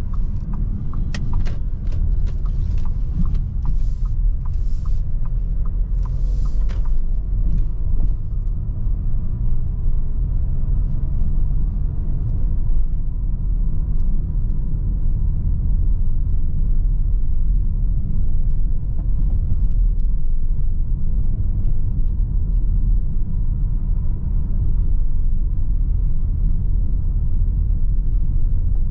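Steady low rumble of a 2019 Audi Q3's 2.0-litre four-cylinder diesel and its tyres, heard from inside the cabin while driving slowly along town streets. In the first few seconds there are a few sharp ticks and short hissing bursts.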